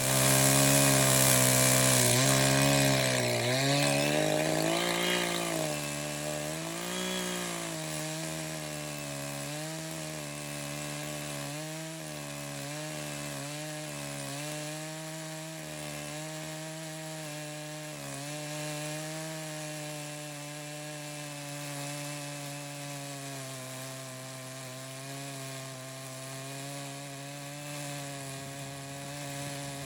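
Echo CS-590 chainsaw's 59cc two-stroke engine at high throttle, driving a ripping chain through a block of red oak in a chainsaw mill. The engine pitch dips and recovers under the cutting load for the first several seconds, then holds steadier and somewhat quieter.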